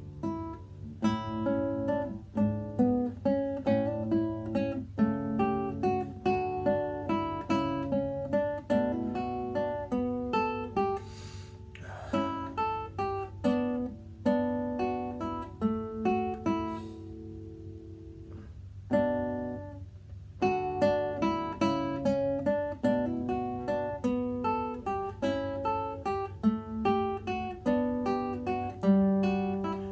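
Solo nylon-string classical guitar fingerpicked, playing a gigue in quick runs of plucked notes. The playing turns softer and sparser in the middle, breaks off briefly about two-thirds of the way through, then resumes busily.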